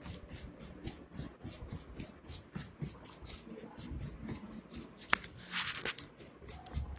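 Salt and turmeric powder being stirred together in a metal tray: quick, regular scratchy rubbing strokes, about three or four a second, with one sharp click about five seconds in.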